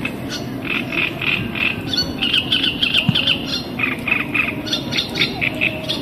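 Animal calling: runs of short, harsh notes repeated about three to four a second, over a steady low background hum.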